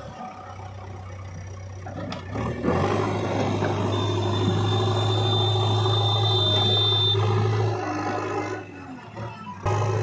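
JCB 3DX backhoe loader's diesel engine running under load as the machine drives and pushes soil with its front loader bucket. The engine gets louder about two and a half seconds in, eases off about eight seconds in, and comes back up suddenly just before the end; a thin high whine sounds over it for about three seconds in the middle.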